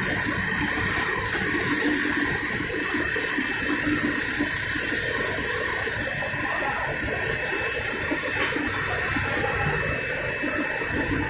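Steady industrial machinery din: a continuous rushing hiss with a constant high-pitched whine and a low hum underneath.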